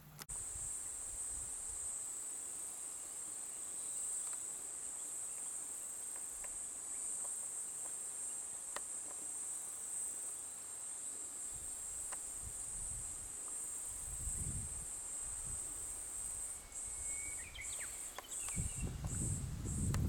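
A singing insect's steady, high-pitched trill, which near the end breaks into short pulses about two a second. Low rumbling comes and goes in the second half, loudest at the very end.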